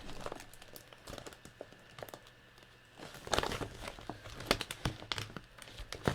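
Plastic packets of craft embellishments crinkling and rustling as they are handled and sorted, with small clicks and taps. The handling gets louder and busier from about three seconds in.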